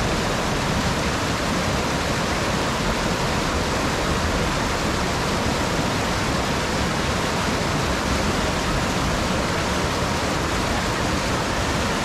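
Whitewater of a fast mountain stream rushing over boulders: a loud, steady rush of water.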